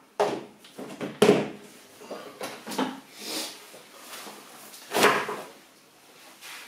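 Hard plastic bait bucket's lid pressed on with a couple of sharp knocks, followed by light handling clatter, then a padded unhooking mat in its fabric bag set down on a wooden table with a soft thump about five seconds in.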